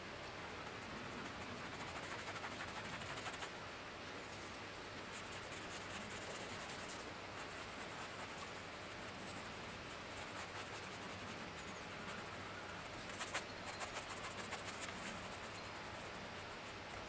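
Paintbrush scratching and dabbing oil paint onto a stretched canvas in repeated strokes, with a run of sharper, louder strokes about thirteen seconds in.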